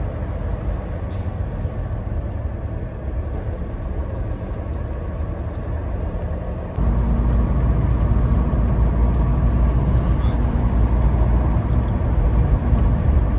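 Steady low drone of a semi-truck's diesel engine and road noise inside the cab while driving on a highway. About halfway through, the drone suddenly becomes louder and deeper and stays that way.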